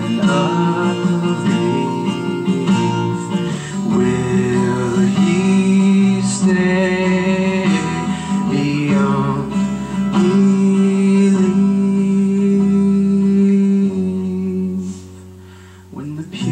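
Acoustic guitars strummed under a man singing long held, wavering notes. The music falls away to a quiet moment about two seconds before the end, then comes back in.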